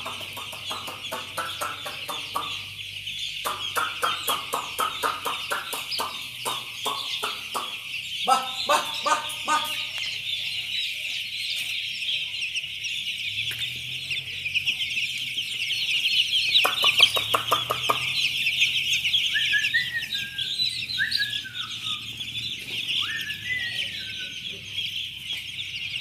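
A dense flock of young broiler chicks peeping without a break, a high-pitched chorus. Several stretches of a rapid, lower pulsing sound come through it, most of them in the first ten seconds, with a few short falling calls near the end.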